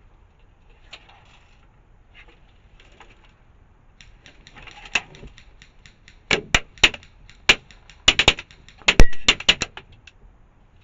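Airsoft guns firing: a run of sharp cracks, some single and some in quick clusters, with fainter rapid ticks between them. It starts about four seconds in, is loudest about nine seconds in, and stops just before the end.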